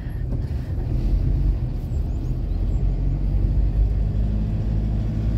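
Engine and road noise heard from inside a moving vehicle's cabin on a concrete mountain road: a steady low rumble, with a slightly higher engine note joining about four seconds in.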